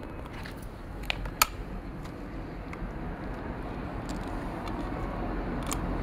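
Gloved hands handling a Stihl MS250 chainsaw with its engine off: two sharp clicks close together about a second in, over a steady low background rumble.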